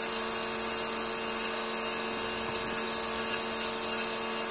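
Steady electrical hum with a high-pitched whine, holding one level throughout: the simulator cockpit's electronics and cooling fans running.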